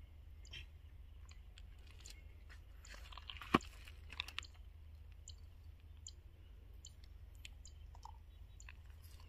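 Faint crackling and scattered small clicks of handling, with one sharp click about three and a half seconds in.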